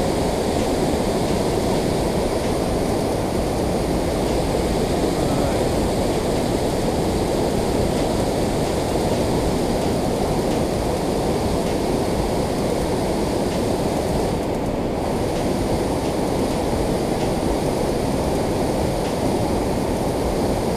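Water pouring over a concrete dam spillway: a steady, heavy rush of falling and churning water, with most of its weight low down.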